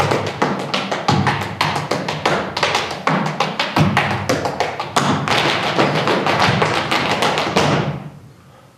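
Dancers' percussive footwork and hand clapping on a stage floor: a loud, fast rhythm of stamps and claps that grows denser about halfway through and fades out near the end.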